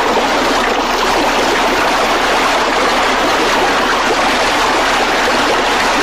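Water of a shallow rocky stream running steadily.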